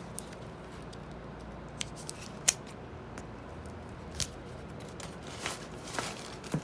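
A package being unpacked by hand: scattered sharp clicks and short rustles, with one loud snap about two and a half seconds in.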